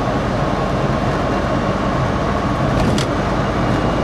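In-cabin driving noise of a 1965 VW Beetle converted to electric drive with a 96-volt DC kit: a steady drone of tyres and wind with a faint high tone, and no petrol engine running. A single short click comes about three seconds in.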